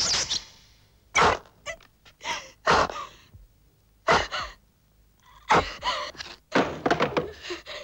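A person's loud, breathy gasps and short gasping cries, one every second or so with quiet between them.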